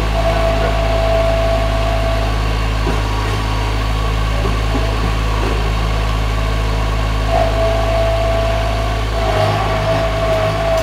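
Skid steer loader's engine running steadily as the machine is driven around, with a steady whine over it for the first couple of seconds and again from about seven seconds in.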